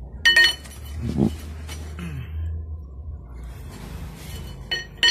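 Steel tool clinking against the drum brake's adjuster as the brake shoes are tightened, two sharp ringing metal clinks, one just after the start and one near the end, with fainter knocks between, over a low steady hum.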